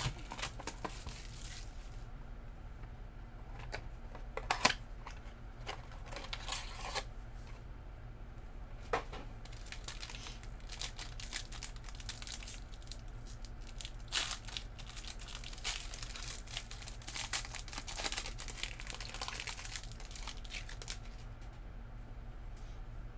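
Foil trading-card pack wrappers being torn open and crinkled by hand, with scattered sharp clicks and rustles of cardboard and cards, busiest in the second half. A low steady hum runs underneath.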